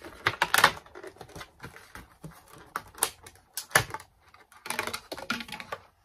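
Crinkling and clicking of Pokémon booster packs and their plastic packaging being handled on a desk, in irregular flurries of sharp clicks.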